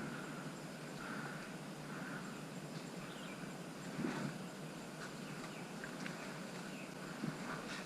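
Quiet outdoor background noise with a few soft knocks, one about four seconds in and two more near the end.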